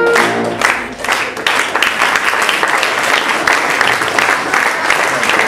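Audience applauding, a steady dense clapping that takes over as the last notes of music die away in the first second.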